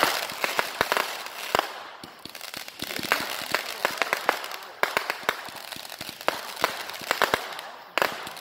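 Aerial fireworks going off in quick succession: many sharp bangs and pops, several a second, from launches and bursts, with crackle between them.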